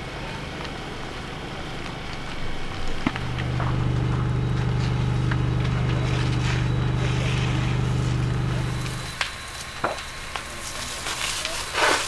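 An engine running steadily, a low even hum that swells louder for several seconds and then fades back, with a few sharp knocks near the end.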